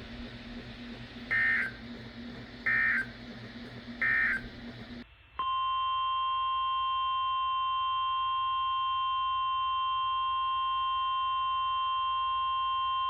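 Three short digital data bursts from an emergency alert broadcast over radio static, the end-of-message code of the NOAA Weather Radio alert. After a cut, the steady weather-radio alert tone of about 1050 Hz sounds continuously, announcing the next warning.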